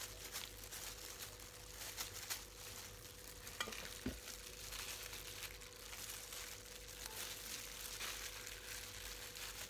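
Faint crackling rustle of thin plastic food-prep gloves and small handling clicks as gloved hands pick up lime halves, over a steady faint hum.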